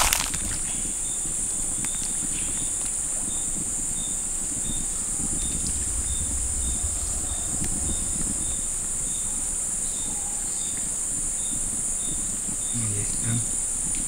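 Steady high-pitched chorus of rainforest insects, with a short chirp repeating two to three times a second over it and a low rumble on the microphone. A single knock right at the start.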